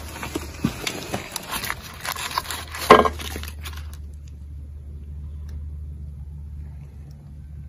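Ammunition parts being handled in a wooden crate: scraping and light clicks, with one sharp knock about three seconds in. After about four seconds the handling noise stops and only a steady low hum remains.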